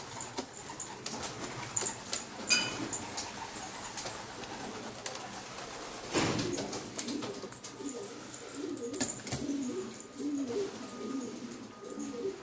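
Domestic pigeons, a pair of black Msawad, cooing in low repeated phrases, mostly in the second half, with scattered small clicks and a brief burst of noise about six seconds in.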